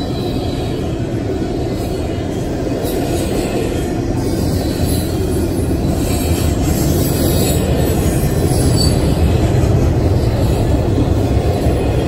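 Double-stack intermodal well cars loaded with containers rolling past: a steady, loud rumble of steel wheels on rail, growing a little louder in the second half.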